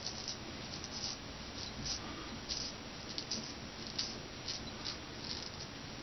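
Straight razor blade scraping stubble off the neck through shaving lather: short, crisp scratching strokes, about two a second at an uneven pace.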